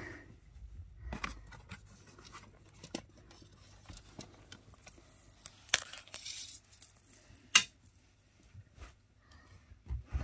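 Cat toys being rummaged and handled: scattered clicks, rustles and a few sharp knocks, with a high tinkling jingle for a few seconds around the middle.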